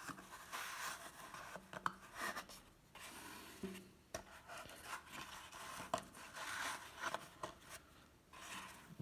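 Trading cards handled in a stack: faint sliding and rubbing of card against card, with a few light clicks as cards are set down.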